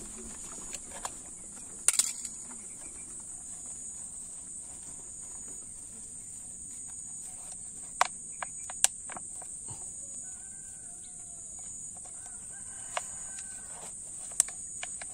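Steady high-pitched insect buzzing throughout, with a few sharp clicks as the plastic water bottle and its tie are handled. A rooster crows faintly twice in the second half.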